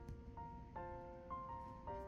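Soft background piano music: slow, gentle notes and chords, a new one about every half second.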